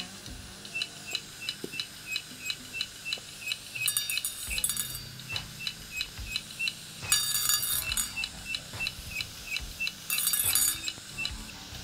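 Opened, failing hard drive running with its lid off: a steady light ticking, about three ticks a second, with short bursts of metallic clinking rattle three times, about 4, 7 and 10 seconds in. The drive has stopped working properly.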